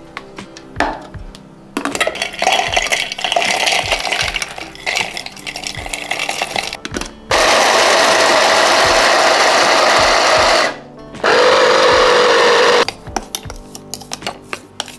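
SilverCrest electric mini chopper's motor running in two pulses while grinding walnuts: a run of about three and a half seconds, then after a short break a second run of about a second and a half, lower in pitch. Near the end a spoon clicks and scrapes against the chopper bowl.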